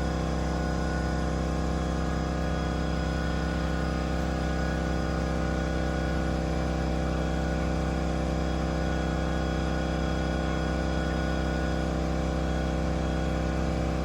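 Air compressor motor running steadily: a constant, even hum with several steady tones layered over it.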